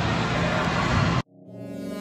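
Steady background noise of a large indoor hall that cuts off abruptly about a second in, followed by background music fading in with sustained notes.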